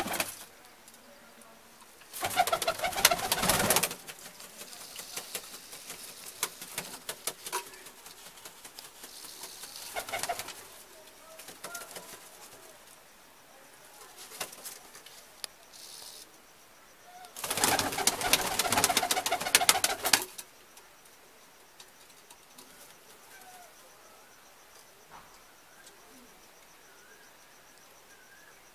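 Domestic high-flying pigeons cooing and shuffling, with two loud bursts of wing flapping, about two seconds in and again around seventeen seconds in, and a smaller flurry near ten seconds.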